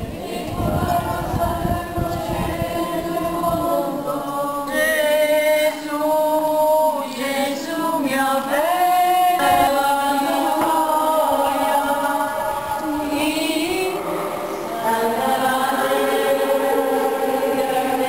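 A crowd of men's and women's voices singing a slow religious hymn together, with a held, drawn-out melody line.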